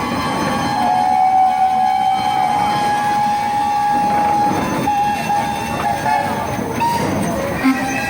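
Many steam whistles blowing at once, several steady notes of different pitches overlapping, with one strong note held from about a second in until about four and a half seconds. This is the mass whistle-up that closes a steam rally.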